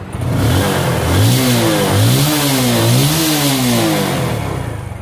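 Motorcycle engine revved in several throttle blips, its pitch rising and falling repeatedly, then easing back toward idle near the end.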